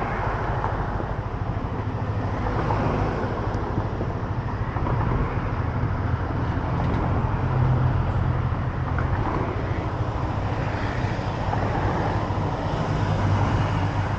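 Road traffic: motor vehicles running and passing, over a steady low engine hum that swells a little twice as vehicles go by.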